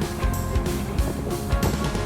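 Background music with a steady beat and held melodic notes.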